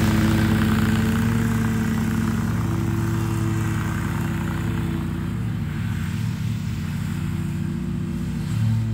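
Exmark Lazer Z zero-turn mower running steadily while mowing, fading somewhat as it moves away and getting louder again near the end.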